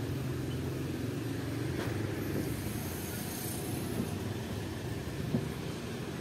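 Diesel locomotive running with a steady low engine hum, with a few faint ticks near the end.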